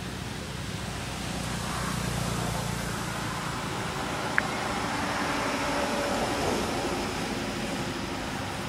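Steady low rumble of a motor vehicle going by, swelling in the middle and easing off, with one sharp click about four seconds in.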